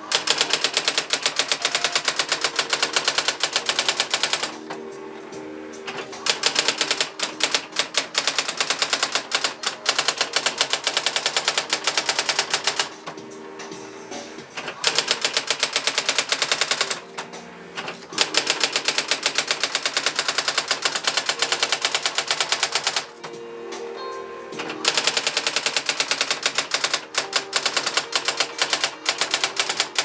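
Brother SX-4000 electronic daisywheel typewriter typing out text by itself in long runs of rapid, machine-gun-like strikes, with short pauses of a second or two between runs.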